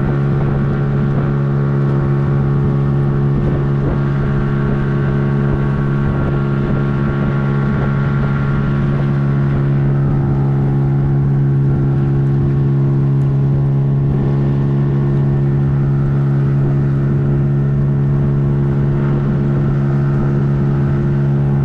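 Motorboat engine running steadily at an unchanging speed, with wind buffeting the microphone.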